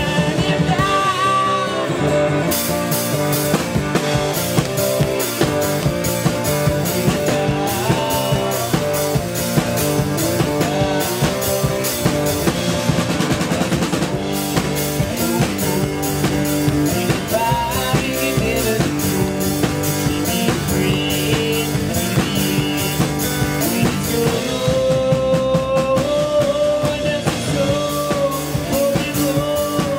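Band playing live: an acoustic guitar strummed over a drum kit keeping a steady rock beat, with cymbals running throughout.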